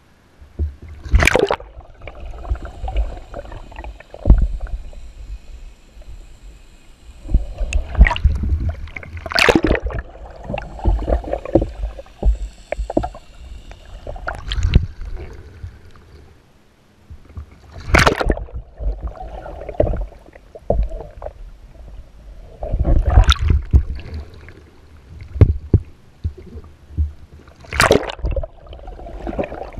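Water splashing and sloshing around a kayak as it capsizes and rolls back up again and again: about five sharp splashes several seconds apart, with muffled underwater rumbling and gurgling between them as the deck-mounted camera goes under.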